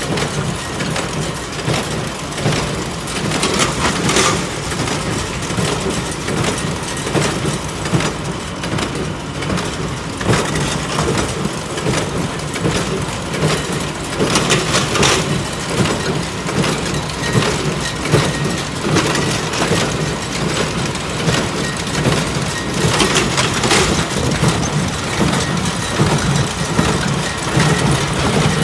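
Tractor engine running steadily under load while it pulls a New Holland small square baler that is picking up and baling hay, the baler's mechanism clattering over the engine.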